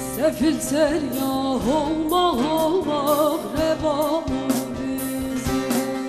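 Turkish folk music: a bağlama (long-necked saz) picked with a plectrum in a band with a drum beat, under a melody that slides and wavers in pitch.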